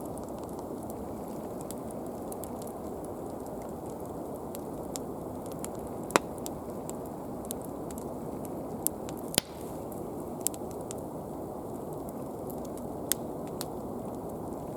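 Swedish torch, a split log burning from the inside, giving a steady rushing noise broken by a handful of sharp pops and crackles, the loudest about six seconds in.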